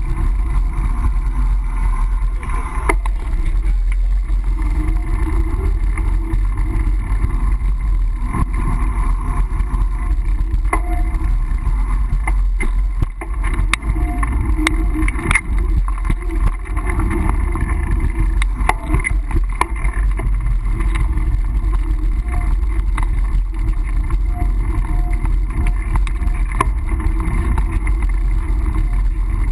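Riding noise from a mountain bike picked up by a GoPro's microphone: a steady low wind rumble on the mic, with scattered clicks and knocks from the bike rattling as it rolls.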